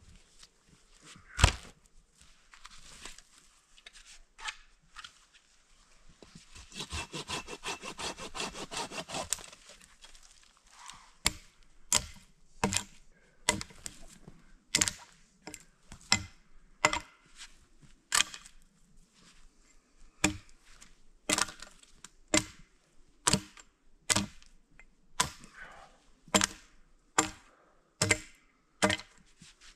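Firewood being worked by hand: a sharp knock about a second and a half in, a few seconds of sawing, then a steady run of sharp chopping strikes on wood, about one a second.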